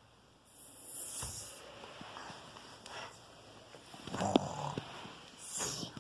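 A man snoring in his sleep: noisy, hissing breaths, with a louder rasping snore about four seconds in.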